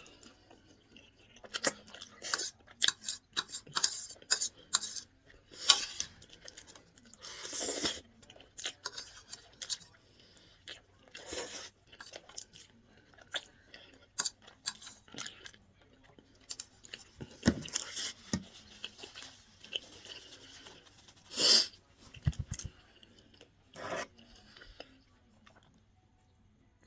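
Close-up eating sounds: chewing and wet mouth noises from someone eating creamy chicken pasta with mushrooms, made up of many short clicks and smacks and a few longer noisy sounds.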